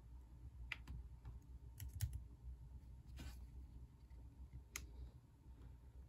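Faint, scattered clicks from a Dell laptop's power button and keys being pressed with a finger: one under a second in, a quick cluster about two seconds in, and a last click near five seconds, over a low room hum.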